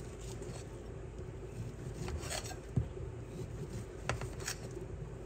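Kitchen knife slicing through cooked steak, quiet cutting with a few short knocks as the blade meets the cutting board, about four of them in the second half.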